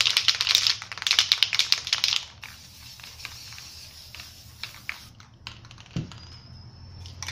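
Aerosol spray-paint can being shaken, its mixing ball rattling rapidly for about two seconds, followed by a few lighter scattered clicks.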